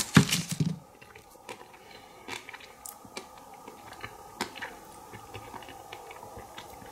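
A person chewing a bite of a Magnum ice cream bar with a crisp chocolate coating: a louder burst in the first second, then faint scattered clicks of chewing.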